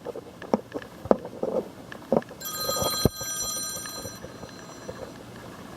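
A mobile phone ringing: a steady ring of several held tones comes in about two and a half seconds in, lasts about two seconds and fades away. Before it there are a few knocks.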